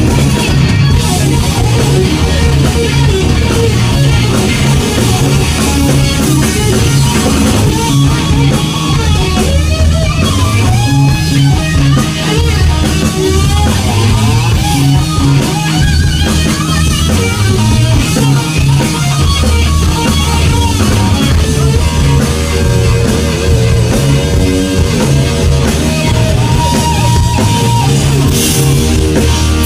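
Rock band playing an instrumental passage: electric guitar over bass guitar and drum kit.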